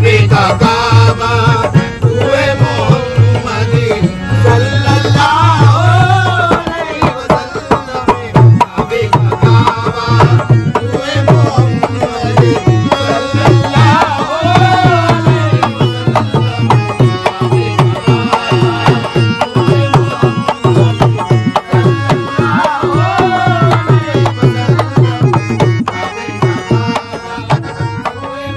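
Live qawwali music: tabla-type hand drums keep up a steady, driving rhythm under an ornamented melody line that slides up and down in pitch.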